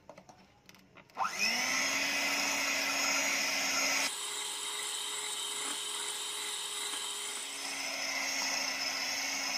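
Electric hand mixer starting up about a second in with a rising whine, then running steadily as its beaters whip an egg-and-sugar cake batter in a glass bowl. Its tone drops lower around four seconds in and rises again near the end.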